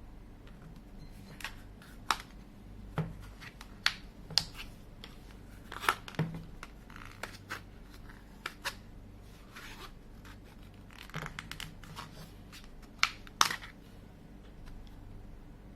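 Irregular sharp clicks and short scrapes of small hand tools prying at a Samsung Galaxy A12 phone's plastic case, about a dozen over the stretch, the loudest a little past the middle and again near the end.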